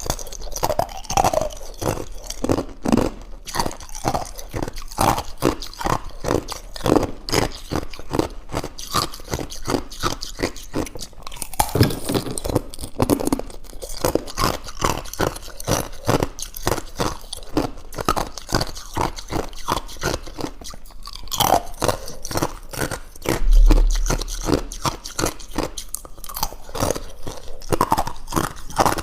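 Thin ice being bitten and chewed close to the microphone: a steady run of sharp crunches and crackles, with one louder low thump a little past the middle.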